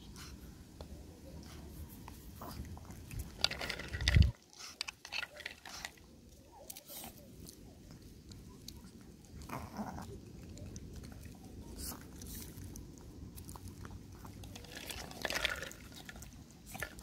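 Pomeranian crunching and chewing a treat taken from a hand, in a few short spells of bites, with one loud low thump about four seconds in.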